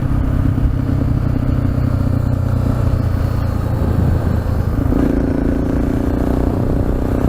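Motorcycle engine running steadily while riding on the highway, its note shifting higher about five seconds in.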